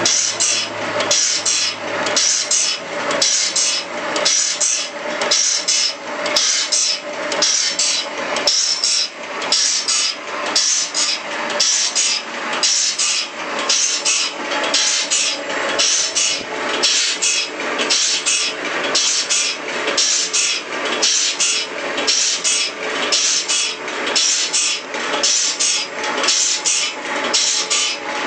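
Automatic band saw blade sharpener, its grinding wheel grinding the blade's teeth one after another in a steady rhythm of about one and a half strokes a second.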